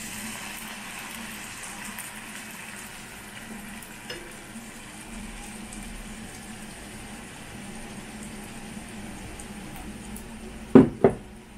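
Shrimp and onions sizzling in a frying pan as shrimp-head juice is poured in through a small strainer, the sizzle brightest in the first couple of seconds. Two sharp knocks near the end.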